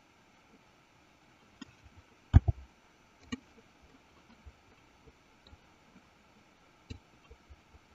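Scattered clicks and taps of a computer mouse and keyboard in use, a few each second at irregular intervals. A heavier double thump comes about two and a half seconds in.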